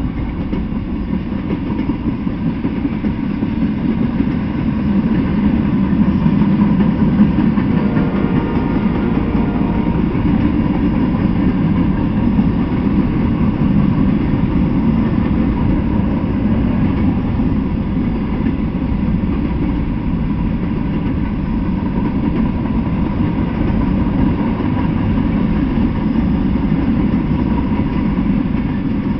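Freight train of tank cars, covered hoppers and boxcars rolling past close by: a steady low rumble of steel wheels on the rails.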